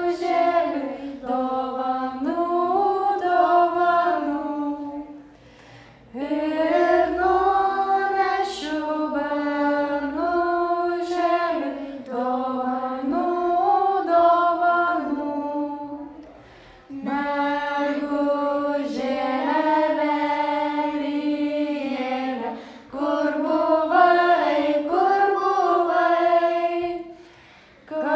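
A group of children and women singing a Lithuanian folk song together without accompaniment, phrase by phrase, with short breath pauses between the verses.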